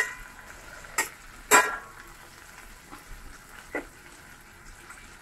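Tiger prawns frying gently in butter and oil in a stainless steel pan, a faint steady sizzle, with a spatula scraping and knocking against the pan three times.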